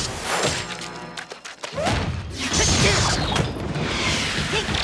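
Cartoon action background music with quick sound effects layered over it. The music drops away briefly about a second and a half in.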